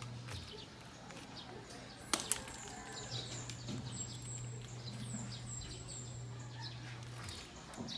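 Worksite ambience: two sharp knocks close together about two seconds in, over a steady low hum, with a run of short high chirps through the middle.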